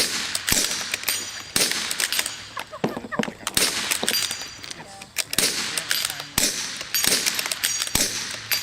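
Two rifles firing rapid, irregular shots at a steel dueling tree, about a dozen in all, some followed by the high ringing clang of a bullet hitting a steel paddle.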